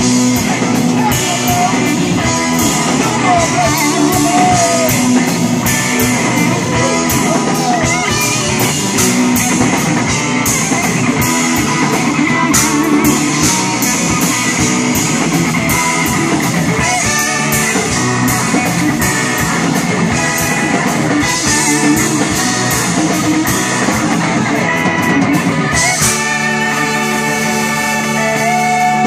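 Live blues-rock band playing electric guitar, bass guitar, drum kit and keyboards. Near the end the music settles onto long held notes.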